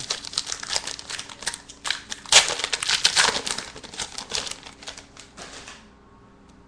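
Trading card pack wrapper being torn open and crinkled by hand, a dense run of crackling rustles that is loudest about two and a half seconds in and dies away near the end.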